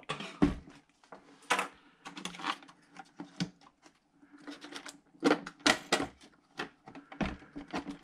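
Irregular clicks, taps and a few dull knocks of metal and plastic parts being handled inside an opened 2011 iMac as the logic board is worked loose from the chassis.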